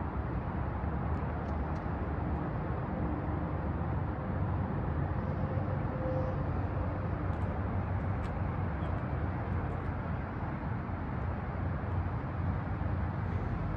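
Pickup truck idling: a steady low rumble with a hiss over it.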